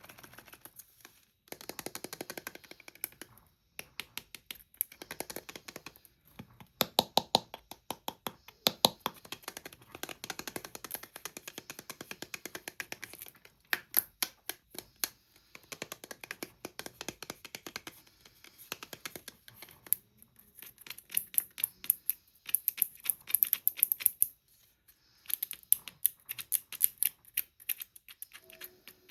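Plastic candy packaging being handled and crinkled, giving bursts of rapid crackling clicks with short pauses between them.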